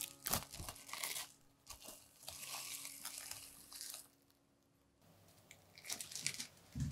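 Plastic cling film crinkling as a sheet is stretched over the rim of a glass mixing bowl, lasting about four seconds. After a short pause come a few light knocks and a dull thump near the end as the glass bowl is handled on the table.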